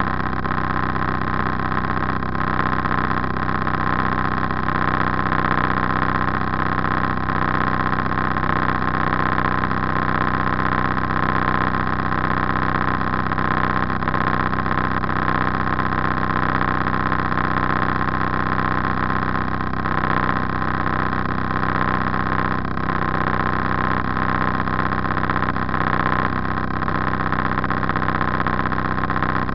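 A motor cruiser's engine running steadily while under way, an even hum with no change in speed.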